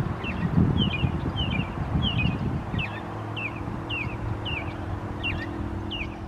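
A small bird chirping over and over, short high notes that drop in pitch, about two a second. Wind rumbles on the microphone at first, and a steady low hum comes in about halfway.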